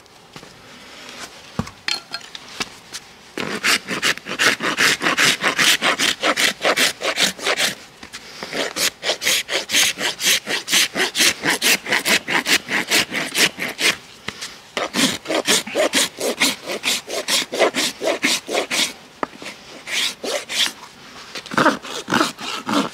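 Farrier's hoof rasp filing a pony's hoof, quick back-and-forth scraping strokes at about three a second. The rasping starts about three seconds in and pauses briefly about two-thirds of the way through.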